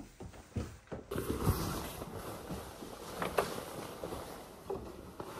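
Rustling of a nylon jacket being taken off, the fabric swishing and crinkling, with a few sharp clicks. A few soft thumps come just before the rustling starts, about a second in.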